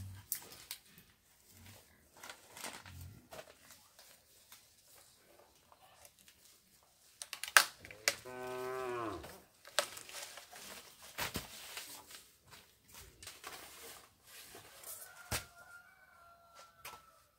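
Cattle mooing once, a single long low call about eight seconds in that falls in pitch at the end, among scattered knocks and rustles.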